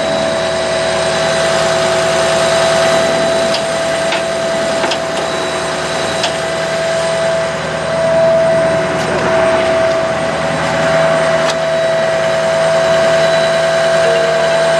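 Ford F-550 bucket truck running at raised RPM with its PTO-driven hydraulic system under load, giving a steady whine, as the Versalift outriggers are lowered with the hand levers. The whine wavers briefly about halfway through, and a few faint clicks come through.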